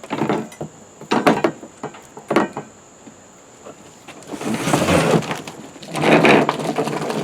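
Hard plastic lawnmower parts being handled and fitted: three short knocks and clatters, then two longer stretches of scraping and rustling.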